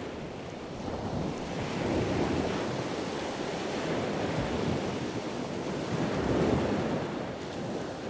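Sea waves washing steadily, swelling and easing every few seconds.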